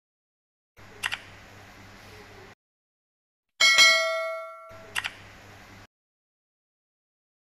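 Click and notification-bell sound effects. A sharp click about a second in over a faint hiss, then a bright bell ding at about three and a half seconds that rings and fades out, then another click about five seconds in.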